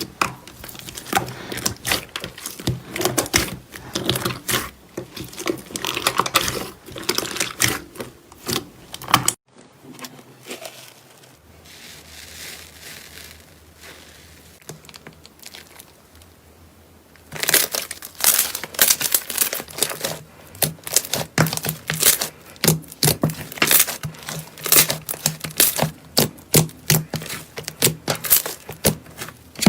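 Slime being squeezed and worked by hands, giving dense, irregular crackling and popping. About nine seconds in it cuts to a quieter, softer stretch, and the crackling comes back near the middle and keeps going.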